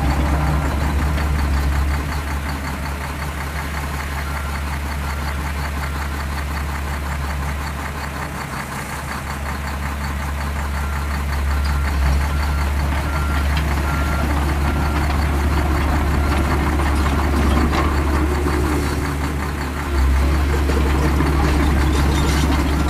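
Heavy truck-type engine idling with a steady low rumble and a knocking texture; a faint repeating beep sounds over it in the first half. The level steps down about two seconds in and back up near twelve and twenty seconds in.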